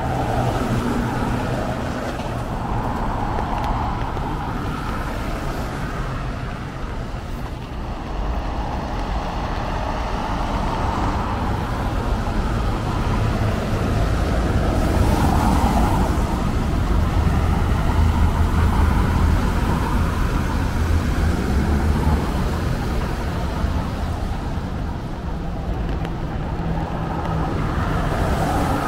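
Road traffic passing on a wet city street: a steady mix of engine rumble and tyre hiss that swells and fades as vehicles go by. It is louder for several seconds about halfway through, with a deeper rumble.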